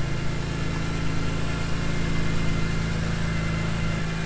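BMW E46 M3's S54 3.2-litre straight-six idling steadily while warming up on its first start after a Vanos rebuild and valve adjustment, running smoothly with no ticking.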